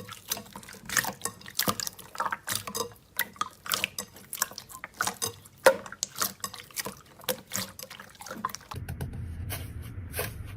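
Slime being squeezed and worked by hand, making quick, irregular wet clicks and squelches. About nine seconds in, the sound changes to a steadier low hum with more regular soft clicks.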